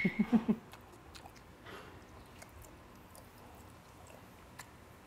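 A man chewing a mouthful of food, quiet wet mouth sounds with faint scattered clicks. A few short vocal sounds come right at the start.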